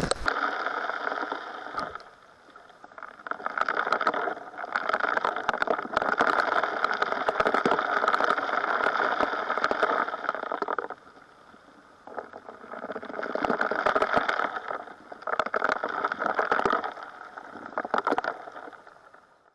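GoldiBox 2-inch electric backpack dredge working: water and gravel rushing through the suction nozzle and sluice, with a steady run of stone clicks. The rush drops away briefly twice, about two seconds in and again near the middle.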